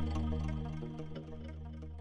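Background music fading out: low sustained notes with faint short notes above them, growing quieter throughout.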